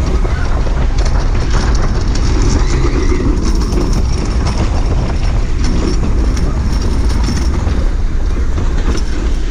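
Suspended roller coaster train running along its track, heard from on board with heavy wind noise on the microphone.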